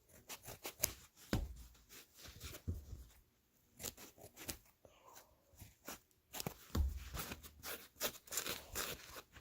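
Scissors snipping and trimming a foam sponge in a run of short crisp cuts, with rustling and a few dull handling bumps.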